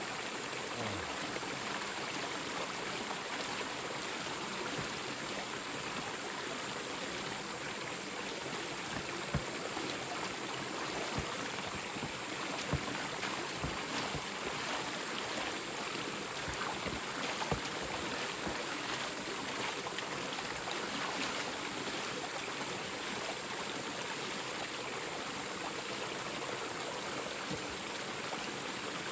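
Mountain stream running steadily over rocks, with a few short knocks or splashes.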